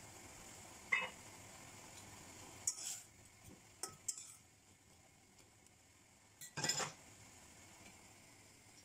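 A metal spoon clinking and scraping against a stainless steel saucepan while stirring wilting spinach, several sharp clinks with the loudest near the end, over a faint steady simmering hiss.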